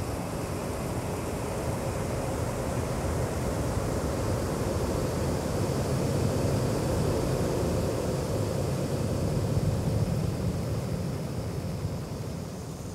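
Steady rushing wind ambience with a low rumble, building slowly and then easing off near the end.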